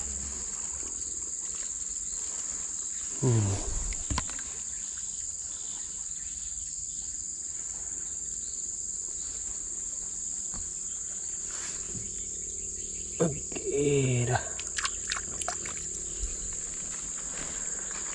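Steady high-pitched drone of insects. A person's voice breaks in briefly about three seconds in and again, a little longer, around thirteen seconds in, with a few light clicks.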